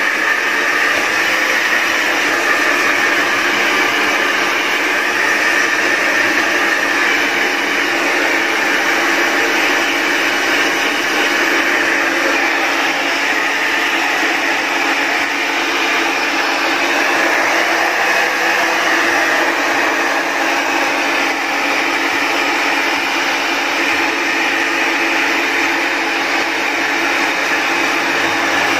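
Handheld electric hair dryer running steadily at close range, blowing a small dog's damp fur dry.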